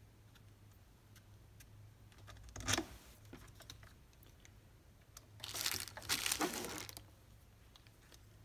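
Hands handling parts and packaging during carburetor work on a string trimmer: scattered light clicks, a short crinkling rustle about two and a half seconds in, and a longer one around six seconds in.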